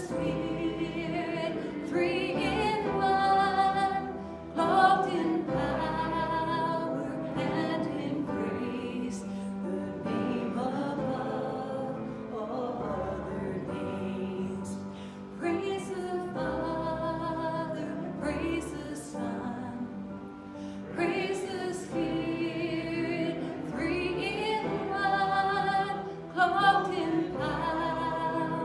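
Worship singing: a voice with vibrato sings phrases of a song over instrumental accompaniment with a steady held low note.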